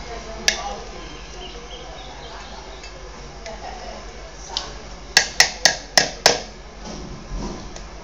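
Sharp metallic clicks of pliers working on a ceiling fan's wiring: one click about half a second in, then a quick run of five clicks, about four a second, past the middle.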